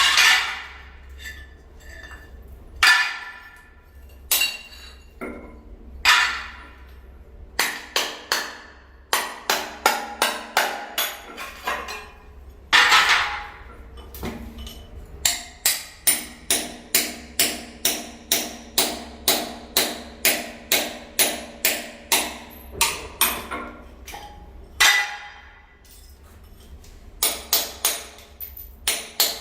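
Hammer striking ceramic tile, sharp ringing knocks. At first single blows a second or so apart, then steady rapid tapping about three times a second from about halfway, pausing briefly and resuming near the end.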